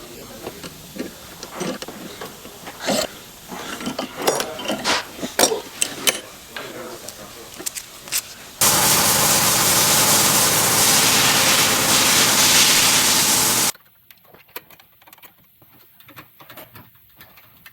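Hand tools clicking and knocking against metal fittings during brake-line flaring work. About halfway through, a loud, steady mechanical noise starts abruptly, runs for about five seconds and cuts off just as abruptly. Scattered faint clicks follow.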